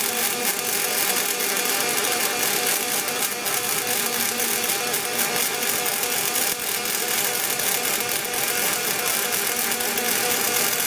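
Pulsed MIG/MAG welding arc from a Lorch welder on stainless steel: a steady buzzing crackle made of many rapid fine ticks.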